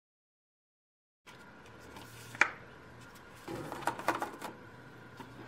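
Silence for about a second, then soft clicks and plastic clatter from a capsule coffee machine being handled as its lid and capsule holder are worked. There is one sharp click about two and a half seconds in, over a low steady hum.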